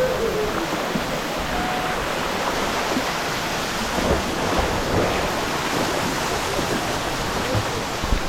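Waterfall pouring into a pool: a steady, heavy rush of falling water.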